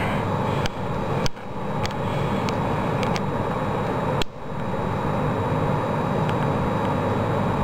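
Steady background noise, a continuous hum and hiss, with a few faint clicks and two brief dips in level.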